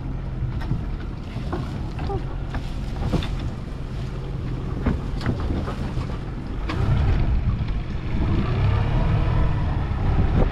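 Small outboard motor running at low speed on an aluminium boat, with water and wind noise. About seven seconds in it gets louder as the throttle is opened.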